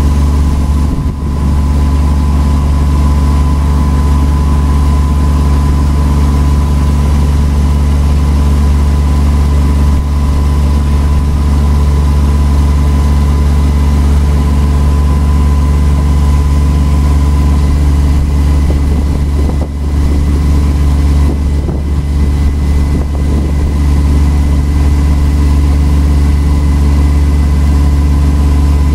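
Tour boat's engine running steadily, heard from on board: a constant low drone with a thin steady whine above it.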